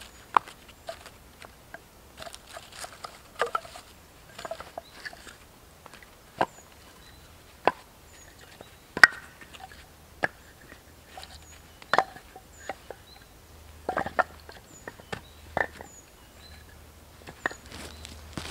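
Short lengths of cut branch wood knocking and clattering together as they are lifted one by one off a stacked pile, a string of irregular sharp wooden knocks.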